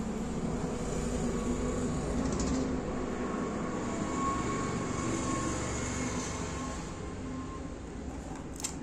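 Steady low rumble of road traffic, with a brief click near the end.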